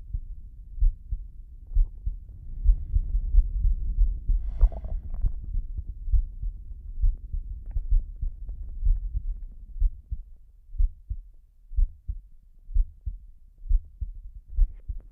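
Slow human heartbeat: low double thumps, about one beat a second. A brief, higher sound comes about four and a half seconds in.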